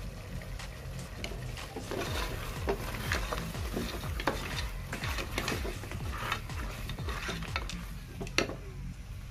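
Wooden spoon stirring and scraping mutton against the side of an aluminium pressure cooker, in repeated short scrapes and clicks, over a low sizzle of the meat frying. A sharper knock of the spoon on the pot comes about eight seconds in.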